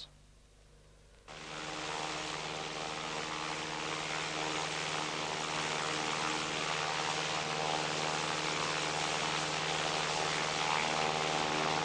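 Light propeller aircraft in flight: a steady engine-and-propeller drone that starts suddenly about a second in, after near silence.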